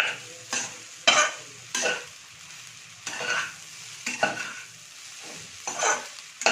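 Steel spoon scraping and turning egg fried rice in a hot metal pan, in repeated short strokes roughly once a second, the rice frying as it is mixed.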